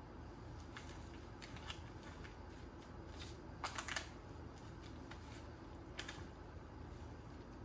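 A few light clicks and taps over a low steady hum, with a quick cluster of three about three and a half seconds in and a single click near six seconds.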